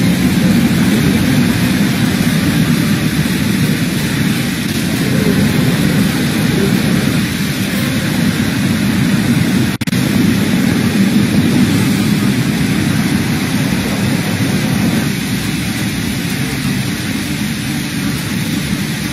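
Steady loud noise of a heavy tropical downpour, with a deep rumble under the hiss of the rain. The sound breaks briefly about ten seconds in.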